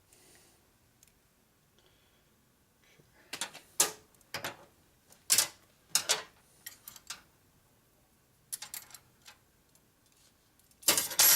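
Sharp metallic clicks and clinks of a metal part and hand tools being handled and set into a bending fixture, a handful of separate knocks spaced irregularly, with the loudest cluster near the end.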